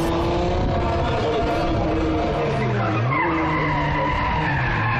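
A drift car's engine revving hard, its pitch dipping and then climbing again about three seconds in, with tyre squeal as it slides.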